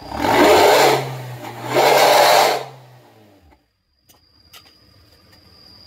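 Toyota Avanza Veloz exhaust fitted with a bolt-on 'suos ngorok' growl insert, the engine revved up in two loud bursts of exhaust noise. It then drops back to a quiet idle about three seconds in.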